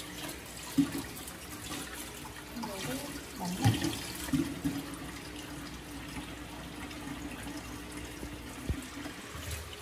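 Kitchen tap running steadily into a sink and a water-filled bowl while a potato is rubbed and rinsed under the stream. A few light knocks stand out, about a second in, near the middle and near the end.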